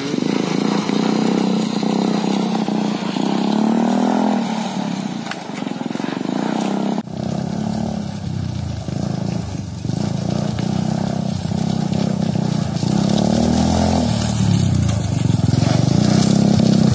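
Go-kart engine running and revving, its pitch rising and falling as the kart is driven. The sound changes abruptly about seven seconds in.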